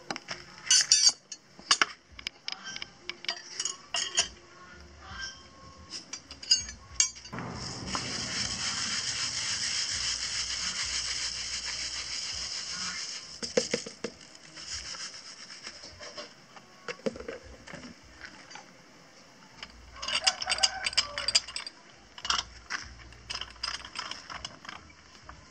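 Metal clinks and rattles as the lid of a traditional cast-iron popcorn cannon is handled. About seven seconds in comes a steady hiss of grains poured into its drum for some five seconds, which is the loading of the machine. Near the end come more clanks and rattles as the lid is fitted and clamped shut.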